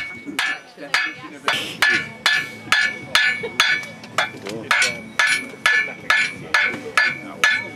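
Blacksmith's hammer striking a red-hot steel bar on an anvil, bending it over the anvil's edge, in a steady rhythm of about two blows a second. Each blow rings off the anvil.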